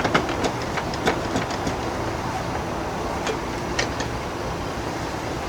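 Irregular metallic clicks and knocks as the lower unit of a 1977 15 hp Evinrude outboard is worked up into place on the midsection, over a steady background hum.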